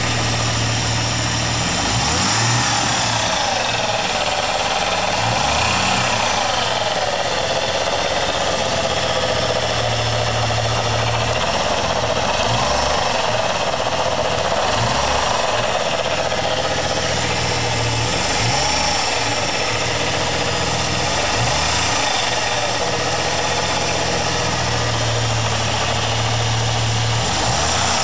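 Ford Thunderbird SC's supercharged 3.8-litre V6 idling, with its Eaton roots-type supercharger heard close up. The engine speed rises and falls briefly every few seconds. The blower sounds bad to its owner.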